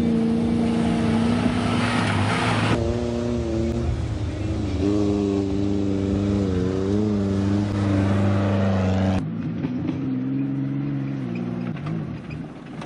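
Off-road 4x4 engines running and revving as the vehicles drive over rough grass tracks, the engine note rising and falling. The sound changes abruptly twice, at cuts between vehicles, and fades near the end.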